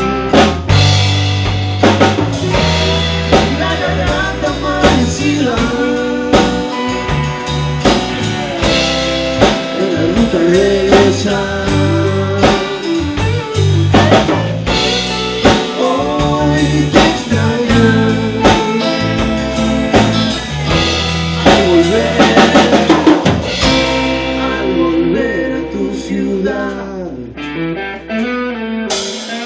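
Rock band playing a song: a drum kit beating steadily under electric and acoustic guitars.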